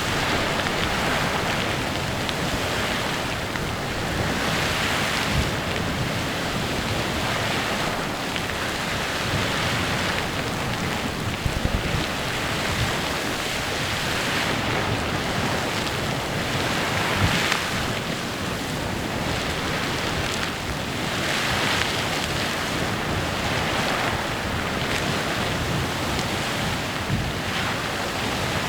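Clepsydra Geyser erupting: a steady rush of splashing water and hissing steam that swells and eases every few seconds, with a couple of brief sharper splashes.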